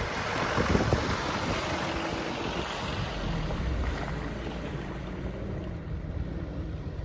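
A 4x4 driving through a deep water crossing: its engine running with water rushing and splashing around it, loudest about a second in, with wind on the microphone.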